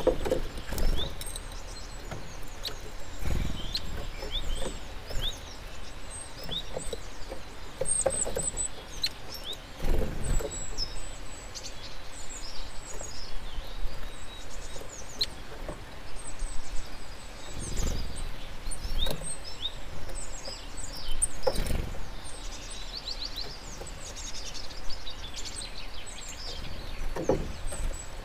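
Small songbirds chirping and twittering in short, high calls throughout, over a low outdoor background rumble, with a few dull low thuds spaced several seconds apart.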